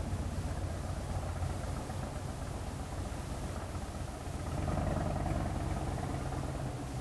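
A car engine running steadily, growing louder for a couple of seconds past the middle before easing back.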